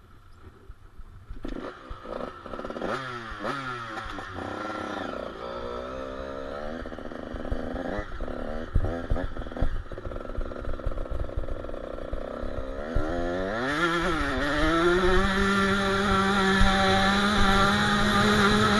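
KTM 85 SX two-stroke single-cylinder motocross bike engine starting about a second and a half in and revved in sharp rising and falling blips, then pulling away at low revs. About fourteen seconds in it accelerates hard and holds high, steady revs, growing louder.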